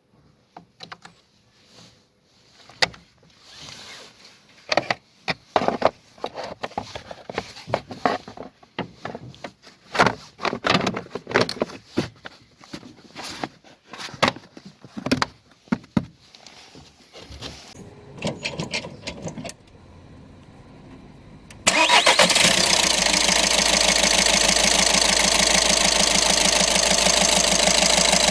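A run of irregular clicks and knocks from hands working on the car, then about 22 seconds in the Volkswagen Golf Mk6's engine starts and keeps running steadily. The car had a crank-no-start fault put down to the engine ECU relay.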